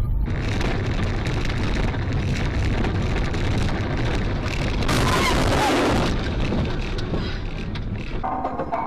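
Heavy vehicle and road noise, strongest in the low range, with a louder hissing surge lasting about a second, about five seconds in.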